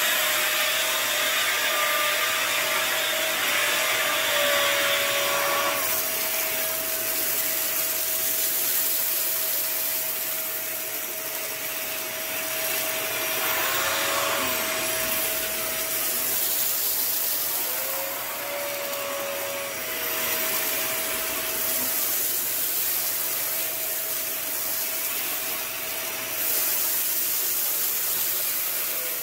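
Vacuum cleaner running steadily with a constant high whine over a rushing hiss as it sucks white powder out of a rug. The rush is strongest for the first few seconds and swells again briefly about halfway through.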